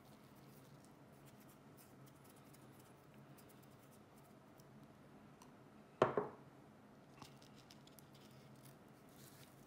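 Quiet room tone, broken about six seconds in by one sharp tap or snap with a short fading rattle, and a faint click a second later.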